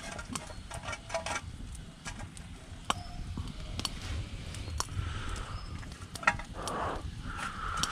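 Open wood fire crackling with scattered sharp pops, along with light clinks and rustles as an enamel mug, pot and cloth are handled beside it.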